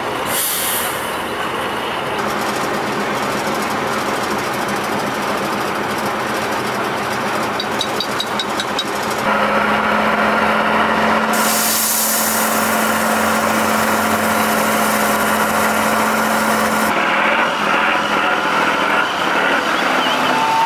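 Heavy diesel truck engines running through several abrupt shot changes, with a steady engine drone in the middle stretch. A short run of light metallic clicks comes about eight seconds in.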